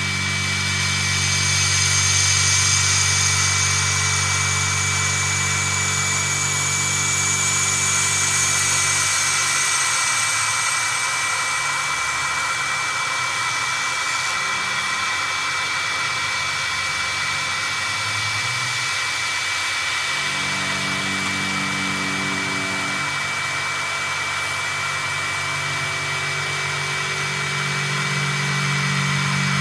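CNC milling machine running as its end mill cuts a metal pulley: a steady motor hum with a high whine over a hiss of cutting noise. The low hum fades about a third of the way through and comes back about two thirds in.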